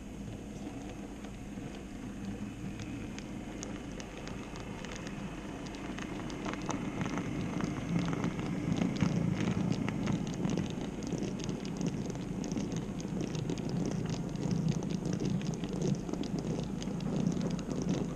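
N-scale model freight train of open wagons rolling past close to the track-level camera: a steady low rumble of wheels on rail with light rapid clicking. It grows louder about six seconds in as the wagons reach the camera.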